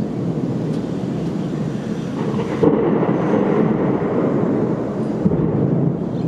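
Thunder rumbling continuously, swelling louder about two and a half seconds in.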